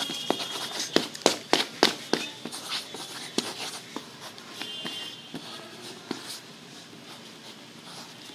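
Graphite pencil scribbling fast across paper, with scratchy back-and-forth strokes. A quick run of sharp knocks in the first two seconds, and the strokes grow fainter near the end.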